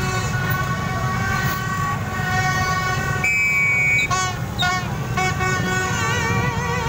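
Many motorbike horns honking at once over the steady running of a stream of motorbike engines. A strong long horn blast comes about three seconds in, then several short toots, and a wavering horn tone near the end.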